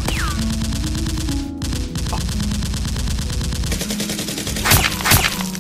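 Rapid automatic gunfire, the sound given to Nerf blasters firing in a mock shootout: a continuous stream of shots for about four seconds, then two separate, louder shots near the end.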